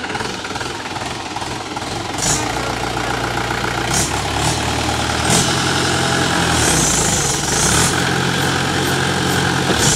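Mahindra 475 DI tractor's diesel engine running, picking up speed about two seconds in and then held steady under load as its iron cage wheels work in the dug-up soil. A few brief sharp noises cut through the engine sound.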